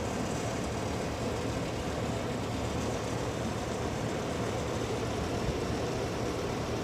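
Steady, low roar of storm wind high overhead, sounding like a hurricane.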